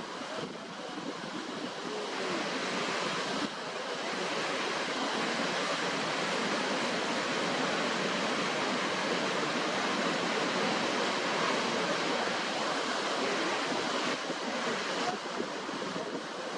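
Waterfall, a steady rush of falling water, stepping up slightly in loudness about three and a half seconds in.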